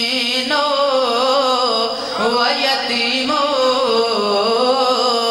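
A boy chanting a devotional verse into a microphone in long, wavering held notes, starting a new phrase about two seconds in.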